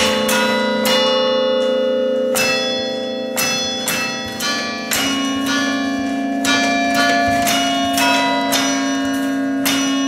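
Tower chime of 11 bells played as a slow tune, one bell struck at a time about once or twice a second, each note ringing on under the next.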